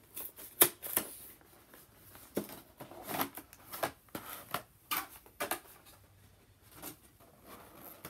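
Cardboard and clear plastic packaging of a Pokémon card box being pulled open and handled, giving an irregular string of sharp clicks and crackles. The sharpest snap comes about half a second in.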